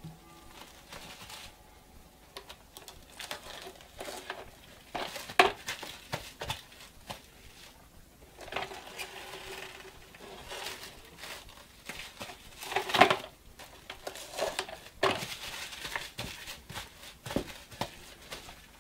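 Plastic cling wrap crinkling and crackling in irregular rustles as it is pulled from the roll and pressed over a mixing bowl, with a couple of sharper crackles about five and thirteen seconds in.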